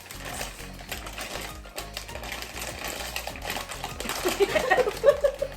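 Plastic crisp packet crinkling and rustling as it is handled and opened, louder and busier in the last second or two, over background music.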